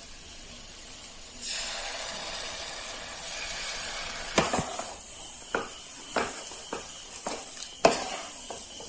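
Thick tapioca and jaggery halwa mixture sizzling in a hot pan as it is stirred. A spoon knocks and scrapes against the pan several times.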